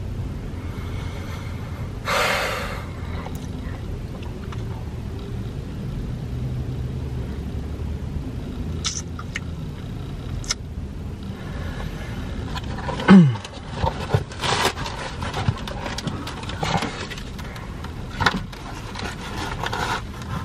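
Steady low rumble inside a car. From about twelve seconds in, a cardboard pizza box is handled, with crackling and scraping. Just after the handling begins comes the loudest sound, a short one that drops steeply in pitch.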